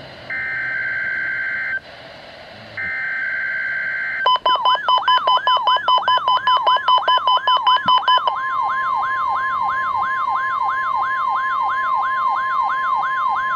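NOAA Weather Radio emergency alert test: two buzzy bursts of SAME digital header data, then, about four seconds in, the long single-pitch warning alarm tone comes on. A siren sweeping upward about three times a second sounds over it, beeping rapidly for the first few seconds.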